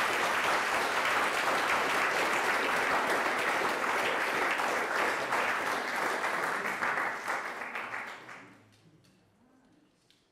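Audience applauding, with dense steady clapping that fades out from about eight seconds in.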